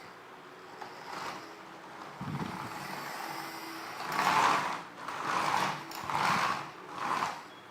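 Plastic toy truck being moved over a surface: four short rasping, scraping runs about a second apart, after a few fainter ones.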